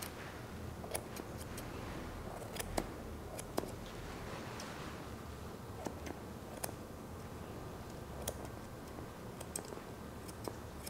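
Grooming shears snipping, trimming the hair around a Shih Tzu puppy's foot: scattered, irregular crisp snips, roughly one a second.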